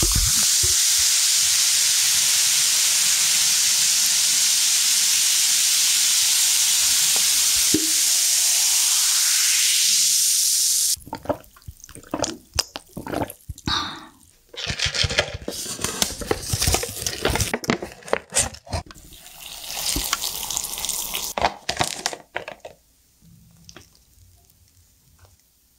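Pepsi poured from a bottle into a glass mug over ice: a steady fizzing pour for about eleven seconds that rises in pitch as the mug fills. Then drinking from the mug, with gulps, clicks of ice against the glass and bits of fizz, dying away near the end.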